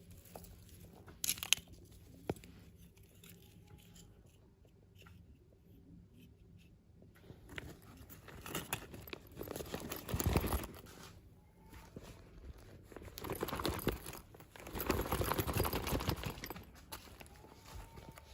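Toy packaging being handled and opened: crinkling and tearing of plastic and paper in several rustling bursts, the longest about two-thirds of the way through, with a few sharp clicks near the start.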